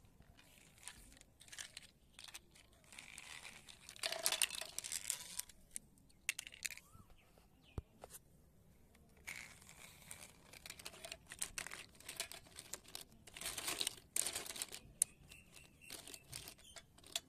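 Plastic toy dump truck and plastic building blocks being handled and pushed about: irregular scraping, rustling and light clicking in bursts, busiest about four seconds in and again about fourteen seconds in.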